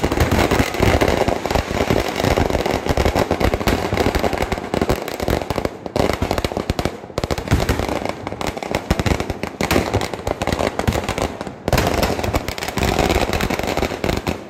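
Vedikkettu fireworks: a dense, continuous barrage of rapid firecracker bangs, with aerial shells bursting overhead and a few momentary breaks in the barrage.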